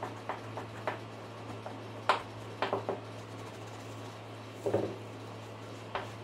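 Small metal parts and tools clinking and knocking in a few scattered clicks, the loudest about two seconds in, over a steady low hum.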